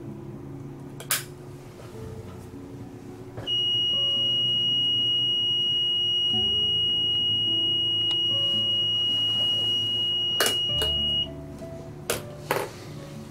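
Liverage MPO-12 MPO polarity tester giving one continuous high-pitched beep for about seven and a half seconds while a fibre patch cord is connected across its ports. MPO connectors click as they are plugged in, about a second in, and pulled out near the end.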